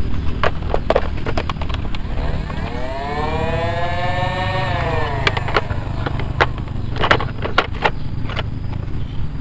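Battery-powered toy gun's electronic sound effect: a pitched tone that rises and then falls over about three seconds, among plastic clicks and knocks over a steady low rumble.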